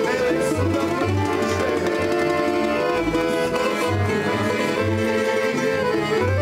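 Tamburica band playing a tune on plucked tamburas, accordion and double bass, with a steady bass pulse under the melody.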